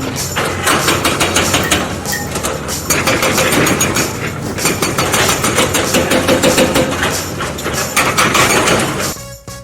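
Excavator's diesel engine running under load, with rapid clanking and knocking throughout.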